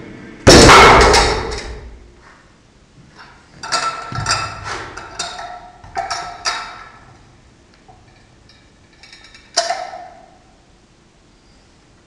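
A loaded rolling thunder handle with 93 kg of iron plates set down onto a rubber mat with a loud clang about half a second in. Scattered metal clinks and clanks of plates and handles follow, with one more sharp ringing clank near ten seconds.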